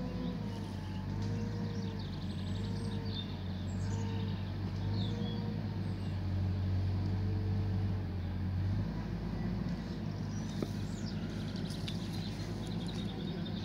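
A vehicle engine idles with a steady low hum that cuts off about nine seconds in. Over it a faint tone rises and falls about once every second and a bit, with scattered bird chirps.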